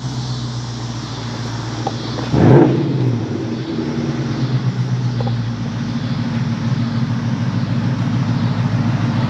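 Ford Mustang GT's 5.0-litre Coyote V8 running as the car is driven, with one short, loud rev that rises about two and a half seconds in, then a steady engine note.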